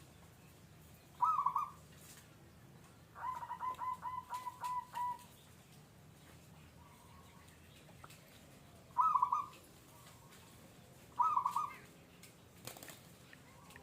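Bird calls: short phrases about a second in and again twice near the end, and a quick run of about eight repeated notes around three to five seconds in.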